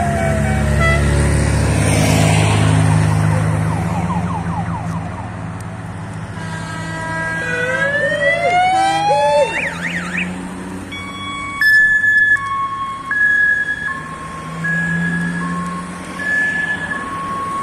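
Cars from a caravan drive past with their engines running, sounding novelty sirens and horns. A falling siren wail comes at the start and a rising whooping siren about halfway. From about two-thirds of the way in, a two-tone horn alternates a high and a low note.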